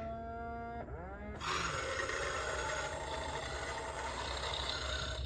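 Mattel D-Rex robot dinosaur toy playing its roar sound through its small speaker: a held pitched tone that drops in pitch about a second in, then a long noisy roar of nearly four seconds that stops near the end.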